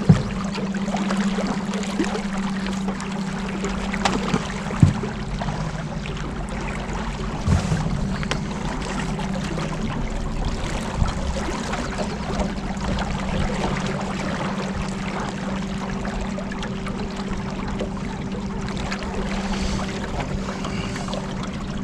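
Boat motor running steadily with a constant low hum, water rushing and splashing along the hull, and a few sharp knocks near the start and about 5 and 7.5 seconds in.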